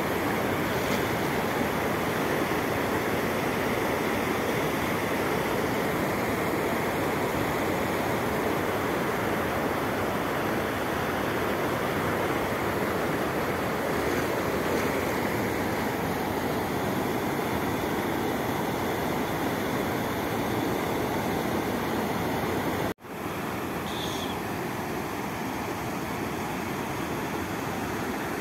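Water spilling over a lake's weir: a steady, even rush of falling water. It breaks off for an instant near the end and resumes a little quieter.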